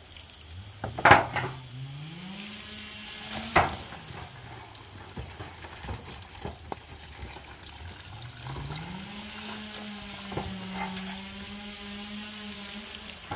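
Water running from a garden hose while a small motor hums, rising in pitch as it starts up about half a second in and again about eight seconds in, then holding steady. A couple of sharp knocks come about a second in and about three and a half seconds in.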